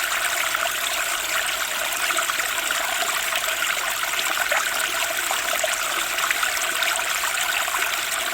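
Spring stream running fast over rocks: a steady rush of water with many small splashes and gurgles.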